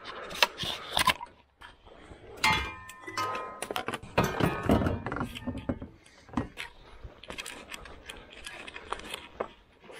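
Knocks, clatter and rustling of gear being pulled out of a car's cargo area, with a metal clank that rings briefly about two and a half seconds in.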